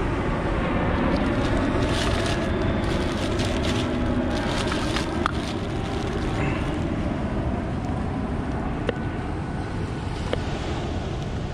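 Wind buffeting the microphone in a steady rumble, with plastic shopping bags crinkling a couple of seconds in and a few sharp taps of a knife on a wooden cutting board near the end.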